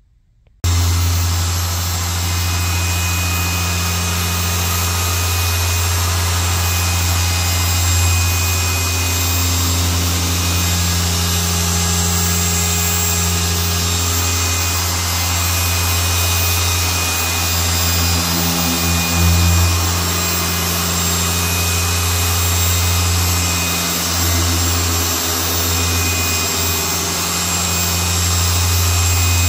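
Electric car polisher with a small foam pad, set to speed 4, running steadily on black paint to buff out holograms: a steady motor hum with a high whine. It starts abruptly about half a second in.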